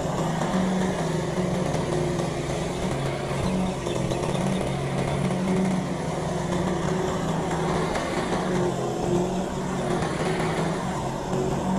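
Lawn mower engine running steadily, its pitch wavering slightly.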